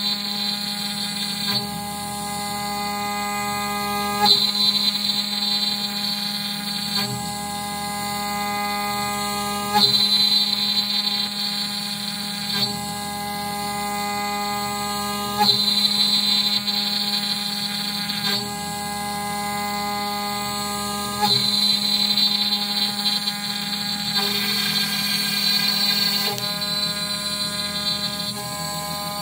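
CNC router spindle running with a small end mill cutting a pocket in a wooden board. It makes a steady whine, and the cutting noise and its tones change every three seconds or so as the bit reverses direction on each pass.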